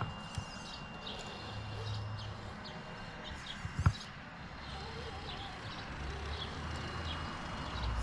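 Small birds chirping repeatedly in the background while an electric RC crawler truck's motor whirs low in short spells as it crawls. A single sharp knock about four seconds in, as the truck strikes the course.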